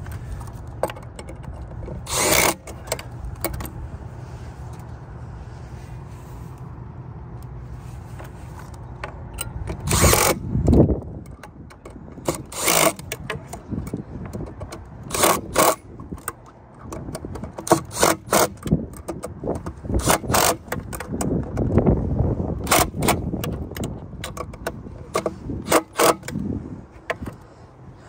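Screws being driven into an HVAC condenser fan motor mount: irregular metallic clicks, clanks and rattles from the screwdriver and sheet-metal parts, the loudest about ten seconds in. A low steady rumble sits underneath for the first third.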